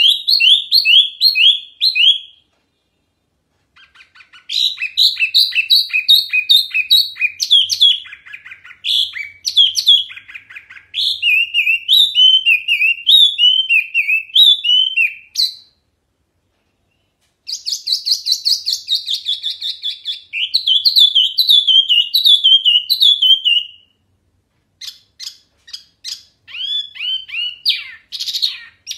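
Caged wambi mini songbird singing loudly and clearly, in rapid bursts of repeated down-slurred whistled notes, with pauses of a second or two between phrases.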